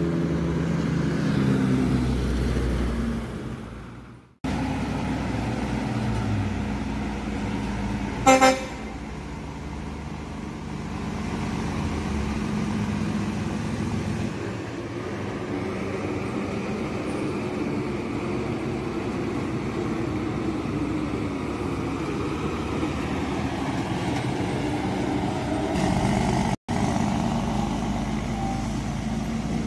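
Heavy trucks' diesel engines running and engine-braking as they come down through a bend, with a short vehicle horn toot about eight seconds in. The sound drops out briefly twice.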